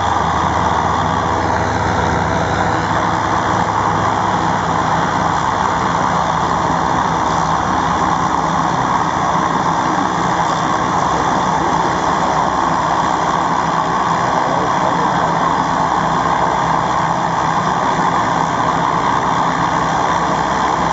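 The twin Garrett T76 turboprop engines of a Rockwell OV-10 Bronco running on the ground, propellers turning: a loud, steady drone with held tones that hardly changes.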